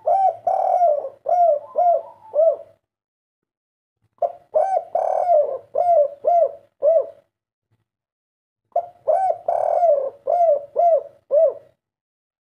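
Spotted dove cooing: three calls about four seconds apart, each a longer opening coo followed by a quick run of short, arched notes. This is the three-'kuk' call type that Indonesian keepers call 'kuk 3'.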